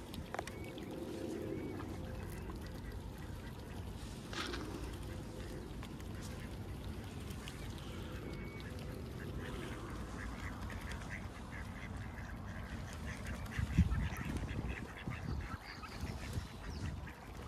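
Ducks quacking: a single call early on, then a run of quick, repeated quacks. A low thump near the end is the loudest moment.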